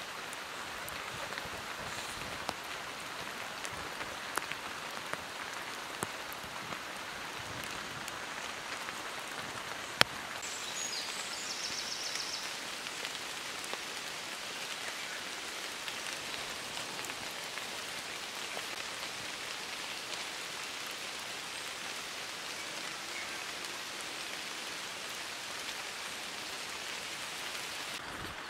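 Steady rain falling on forest leaves, with scattered drops ticking throughout and one sharp knock about ten seconds in, followed by a brief high chirp.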